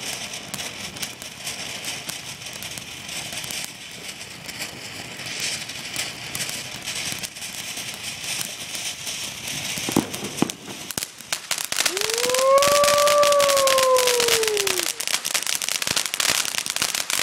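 Fireworks crackling: a dense crackle of many small bursts that thickens in the second half, with one sharp bang about ten seconds in. Around twelve seconds in, a long tone rises and then falls.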